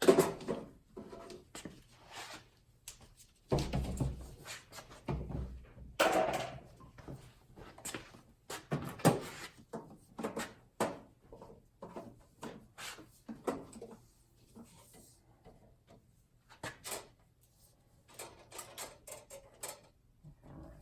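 Irregular knocks, clicks and rustling of hands working electrical cable and tools, with the loudest knocks about 4 and 6 seconds in, over a faint steady low hum.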